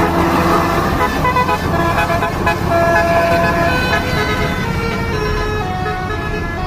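Bus's Basuri telolet horn playing a tune of short held notes that step from pitch to pitch, several tones at once, over the low running of the bus's engine.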